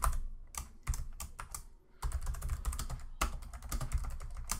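Typing on a computer keyboard: a quick run of key clicks, with a short pause a little under two seconds in.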